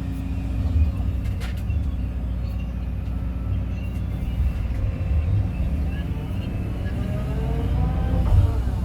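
Kobelco excavator's diesel engine running steadily, with a faint whine rising in pitch near the end and a sharp click about a second and a half in.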